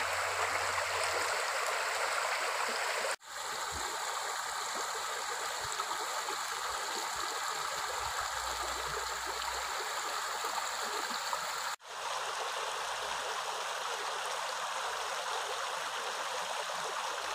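Shallow rocky stream running over stones: a steady rush of water.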